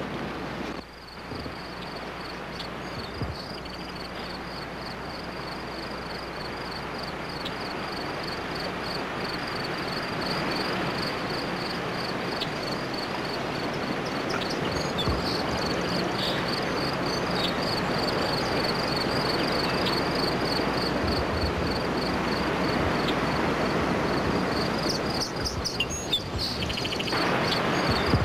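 Rushing river current, a steady hiss that grows slowly louder, with a high, fast-pulsing insect chirp running over it.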